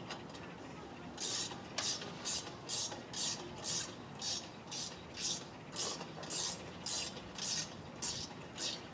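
A hand tool worked in a run of short, even, hissy strokes, about two a second, starting about a second in and stopping near the end.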